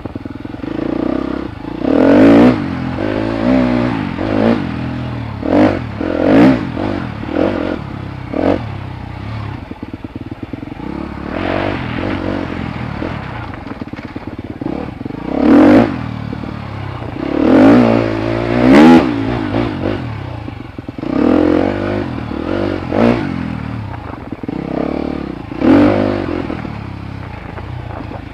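Dirt bike engine revving up and easing off over and over as the bike is ridden along a twisting trail. Between the repeated sharp throttle surges it runs at a steady drone.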